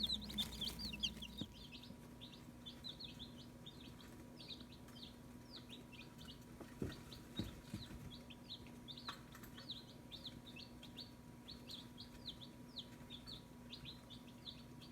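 A brooder of day-old Barred Rock and Cinnamon Queen chicks peeping continuously, many short high falling peeps overlapping, louder in the first couple of seconds. A faint steady hum runs underneath.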